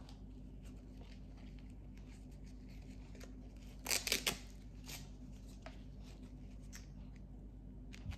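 Handling noise from threading the GoPro Smart Remote's black rubber strap: faint scattered clicks and scrapes, with a quick cluster of sharp clicks about four seconds in, over a faint steady hum.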